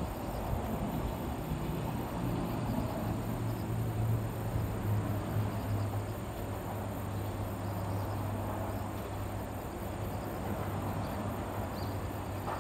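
Insects chirping faintly over a steady low hum, with no single event standing out.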